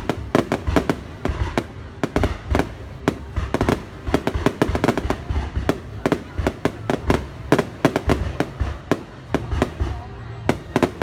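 Fireworks going off: a rapid, irregular series of sharp bangs and cracks, several a second.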